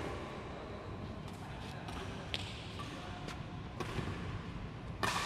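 Badminton rackets striking shuttlecocks in a large hall: a string of sharp hits at irregular intervals, the loudest near the end, over a steady background of hall noise.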